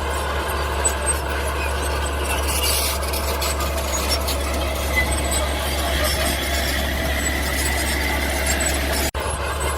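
Mini bulldozer running steadily, its engine with a squealing whine over it. The sound drops out for an instant near the end.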